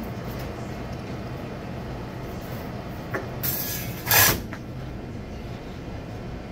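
Steady mechanical hum of running frozen-drink machines, with a small click about three seconds in and a brief loud knock just after four seconds.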